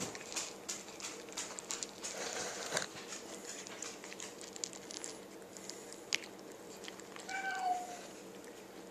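A cat and a puppy eating dry food off the floor, with many small crunches and clicks in the first three seconds and a few later. Near the end, a short high cry, likely the cat mewing.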